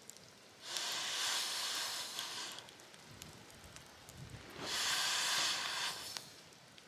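Wood campfire crackling, broken by two loud bursts of hissing about two seconds and a second and a half long.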